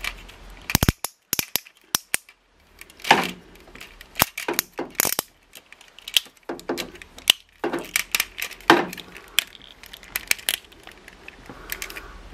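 Plastic clicks and snaps from the parts and joints of a Transformers Masterpiece MP-27 Ironhide figure being turned, folded and clipped by hand: scattered sharp clicks at irregular intervals, with a quieter stretch about two seconds in.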